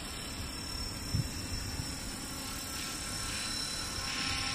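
JCZK 300C scale RC helicopter in flight, its motor and rotor giving a steady whine over a low rumble, growing a little louder near the end as it comes closer.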